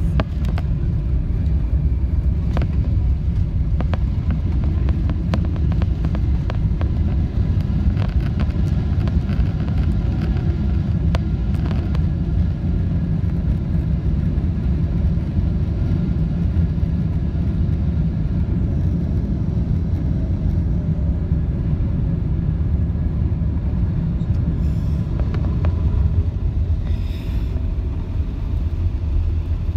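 Cabin noise of a Boeing 777-300ER rolling along the runway after touchdown: a steady, heavy low rumble from the airframe and engines, with scattered clicks and rattles in roughly the first dozen seconds.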